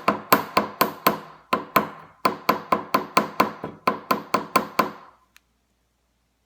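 Small hammer striking a sterling silver jump ring in quick, even taps, about four a second, each with a metallic ring, flattening the ring. The hammering stops about five seconds in.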